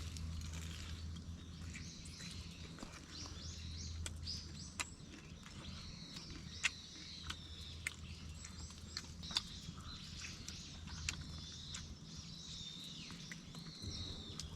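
Small birds chirping repeatedly, with a few sharp, isolated clicks or cracks scattered through and a steady low hum underneath.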